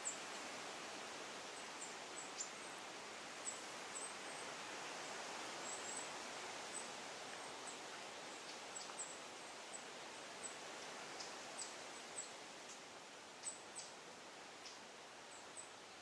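Steady forest ambience, a soft even hiss, with many brief, very high-pitched chirps and ticks scattered through it.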